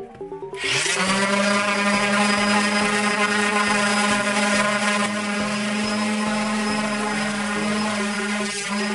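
Electric power sander starting up, running at a steady pitch while sanding the cured epoxy surface, with background music underneath.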